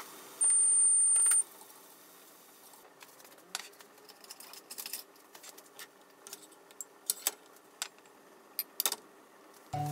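A loud, high-pitched steady beep lasting about a second near the start. Then scattered light clicks and taps of kitchen utensils against a frying pan and a ceramic cup as cooked hijiki is scooped out.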